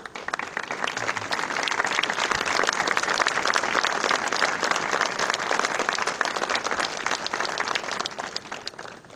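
An audience clapping steadily, then fading out shortly before the end.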